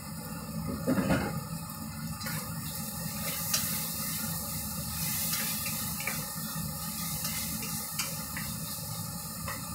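Meat and garlic sizzling in a hot stainless steel pot as they are stirred with a spatula, the hiss swelling for a few seconds midway, with a few sharp clicks of the spatula against the pot. A knock about a second in.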